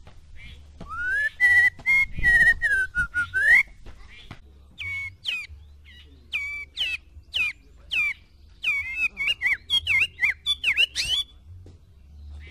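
White-rumped shama (murai batu) singing: loud whistled phrases that glide up and down, then a run of short, quick, varied notes ending in a rising note.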